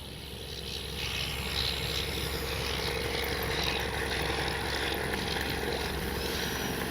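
The 64 mm electric ducted fan of a radio-controlled F-86 Sabre jet running steadily at low power as the model taxis along the runway, an even whine over a rushing hiss.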